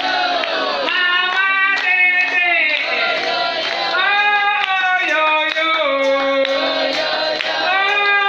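Women singing a lively song, a lead voice held in long notes, over a steady beat.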